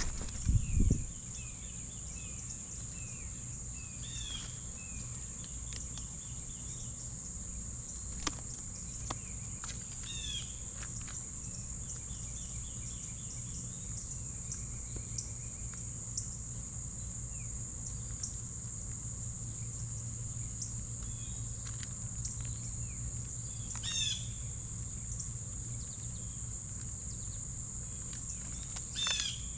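A steady high-pitched insect trill, like crickets, carries on throughout. Over it, birds give short downward-slurred chirps, about four times, with a few quicker series of notes between them.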